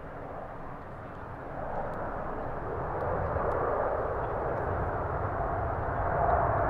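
Jet airliner engines running: a steady rumble and hiss that grows louder two to three seconds in.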